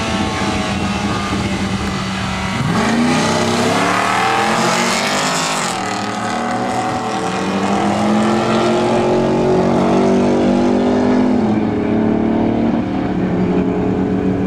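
Cars launching off a drag-strip start line and accelerating hard down the track: the engine note climbs sharply about three seconds in, falls back at a gear change near six seconds, then climbs again.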